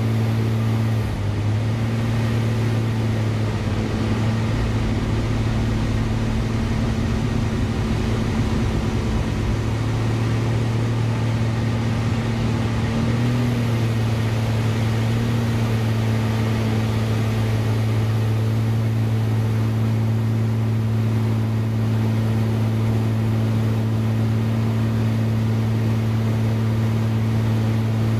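Single-engine aerobatic aircraft's piston engine and propeller droning steadily, heard from inside the cockpit over a steady hiss of air. The drone shifts slightly in pitch about a second in and again about 13 seconds in, and a low rumble swells between about 4 and 10 seconds in.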